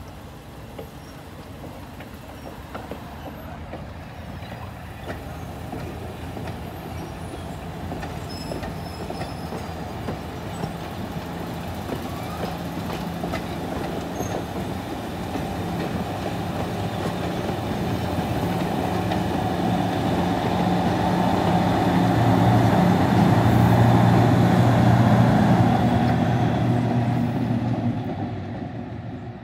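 Train rolling past on the rails, with a GE 65-ton diesel switcher locomotive's engine running steadily and growing louder as the locomotive comes close. It is loudest a few seconds before the end, then starts to fade.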